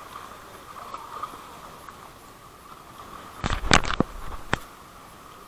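A short cluster of knocks and clatter from a hand and fishing tackle against wet shoreline rock as a just-caught small fish is landed, followed by one more sharp knock. A steady high-pitched chirring sounds throughout.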